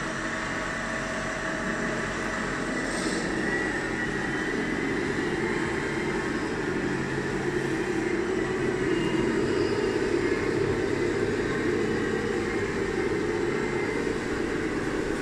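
Steady whirring of radio-controlled scale construction models: electric motors and hydraulic pumps running, getting a little louder about halfway through.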